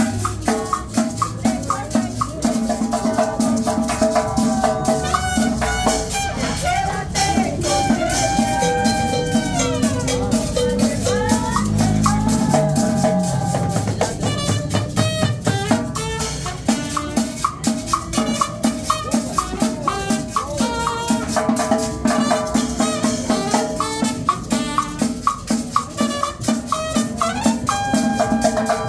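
Live cumbia band playing: a steady, driving drum beat with a shaker rattling on top and a sustained melody line over it.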